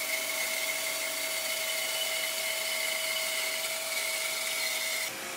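Bandsaw running and cutting through a block of walnut, a steady whine. It stops abruptly about five seconds in.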